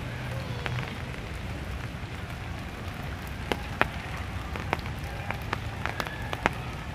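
Rain falling steadily on a pond, with sharp drip ticks now and then, more of them in the second half.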